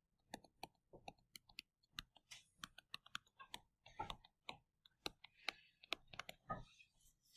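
Faint, irregular clicks and taps of a stylus pen on a touchscreen, a few a second, as a formula is handwritten stroke by stroke.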